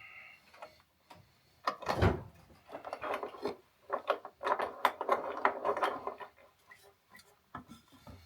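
Hand woodworking on a pine joint piece: a brief squeak at the start, a heavy wooden knock about two seconds in, then several seconds of wood scraping, rubbing and clicking, and a last knock near the end.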